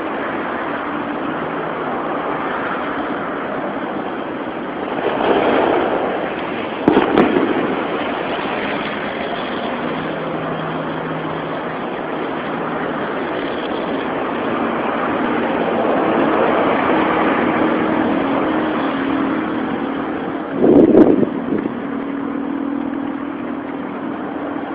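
Steady road traffic: engines humming and vehicles swelling louder as they pass. Two short sharp bangs cut through, about a quarter of the way in and again near the end.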